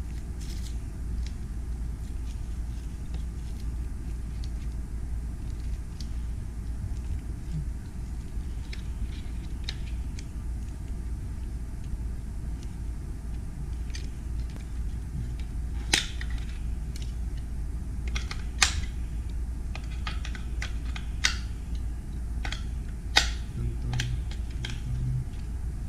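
Scattered sharp clicks and taps of an RC car's box, packaging and plastic parts being handled during unboxing, coming more often in the second half, over a steady low hum.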